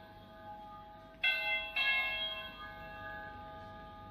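Electronic doorbell chime ringing: a stack of bell-like notes, struck again twice a little over a second in, each time dying away slowly.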